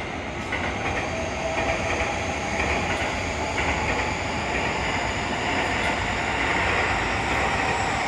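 Seibu 30000 series electric train passing slowly, wheels rumbling over the track with a steady electric whine above the rumble.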